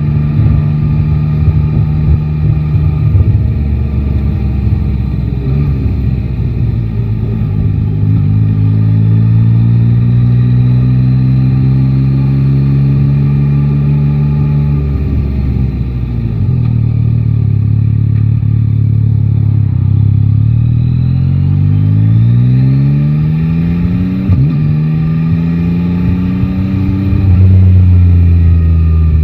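Yamaha Tracer 9 GT's three-cylinder engine running under way. Its pitch climbs as the bike accelerates, holds steady, then falls about halfway through as it slows, before climbing again.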